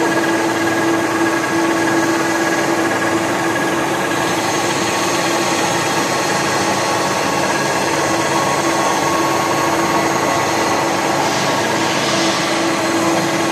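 TOS WHN 13.8 CNC table-type horizontal boring mill running under power: a steady machine hum with a constant mid-pitched whine and a fainter higher tone, with a brief hiss near the end.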